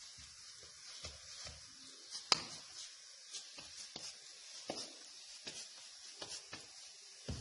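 Hands patting a ball of pearl-millet (bajra) dough between the palms to flatten it into a roti: soft, irregular slaps about once a second, the loudest a little over two seconds in, over a faint steady hiss.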